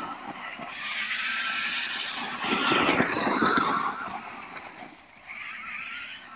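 Himoto Ziege electric RC buggy on a 3S LiPo, its motor and spur-gear drivetrain whining in a high pitch that rises and falls as it speeds up and slows. The sound fades about four to five seconds in as the car drives off, then comes back.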